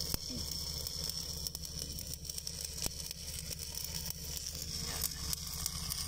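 Stick (SMAW) welding arc burning steadily as the electrode is run along the pipe joint: an even, fine crackle over a steady low hum.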